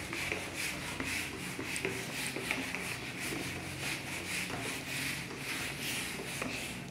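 Whiteboard eraser rubbing across a whiteboard in rapid back-and-forth strokes as the writing is wiped off.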